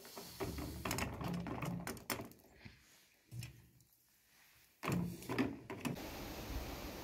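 Metal tongs clicking and clattering as wet items are lifted from a plastic bowl and set into the coals of a metal wood stove, in several short bursts. Near the end the clatter gives way to a steady outdoor hiss.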